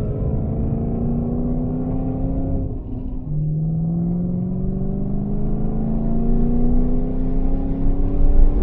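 Car engine pulling hard in gear, its pitch climbing steadily; about three seconds in it dips and drops to a lower pitch as it shifts up, then climbs again.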